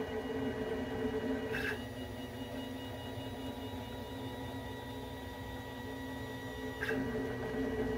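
CNC 3040 T-D router running an air cut: its stepper motors drive the threaded rods to move the spindle head, giving a steady whine. The sound changes briefly about a second and a half in and again near the end, as one move gives way to the next.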